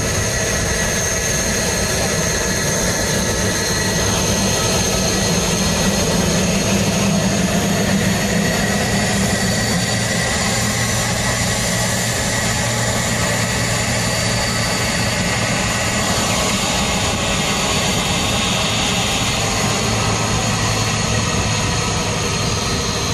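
Jet airliner engines running: a continuous, even drone with a low hum and a thin high whine above it.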